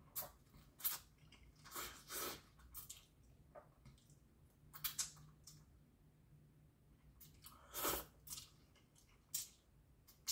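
A person chewing instant noodles close to the microphone: quiet, irregular short crunchy and wet mouth sounds, with a louder one about eight seconds in.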